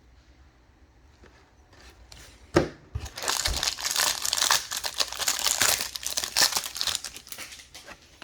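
A trading card pack wrapper being torn open and crinkled: a sharp knock about two and a half seconds in, then about four seconds of crinkling and tearing.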